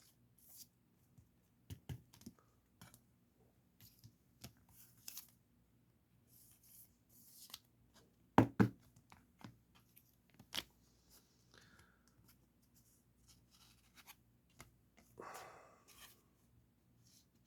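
Trading cards being slipped into plastic penny sleeves and top loaders: scattered light plastic rustles and clicks, with a sharper knock about eight and a half seconds in and a longer rustle near the end.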